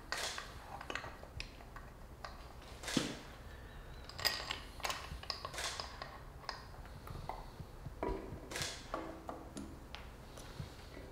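Scattered light clicks, taps and small metallic clinks of parts and tools being handled while fuel lines are fitted to a Subaru EJ20 intake manifold, with a few short ringing clinks about eight seconds in.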